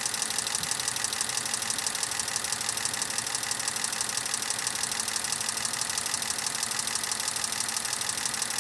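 Toyota Mark II's 1G-FE inline-six running warm at idle with a steady, rapid knocking. The engine is worn: it shakes because the fourth cylinder is low on compression, and it is smoking and blowing oil through the breather.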